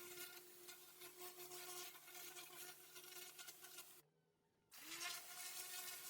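Pressure washer running faintly: a steady machine hum under a hiss of spray. It drops out for under a second about four seconds in and comes back with the hum sliding up in pitch.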